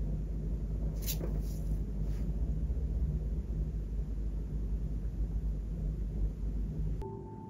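Steady low rumble of room and handling noise, with a few faint brushing sounds between one and two seconds in. Gentle plucked-string music starts suddenly just before the end.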